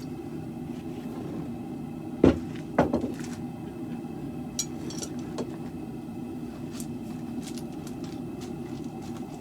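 Steady low roar of a propane forge. A little over two seconds in, one loud sharp metal strike is followed by a quick cluster of three more, then a few faint clinks.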